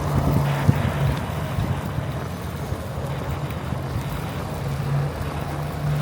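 Blizzard wind rushing over the microphone, with a steady low hum underneath that comes and goes.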